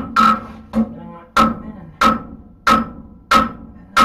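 Hammer blows on hot horseshoe steel over an anvil, a blacksmith forging and shaping a hoof pick blade. The blows come in a steady rhythm of about one and a half a second, one of them lighter, and each leaves a short metallic ring.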